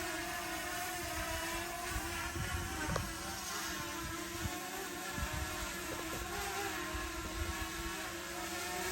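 Potensic Atom drone's propellers whining steadily as it hovers low in gusty wind, the pitch wavering slightly as the motors adjust to the gusts. Wind gusts buffet the microphone with uneven low rumbles.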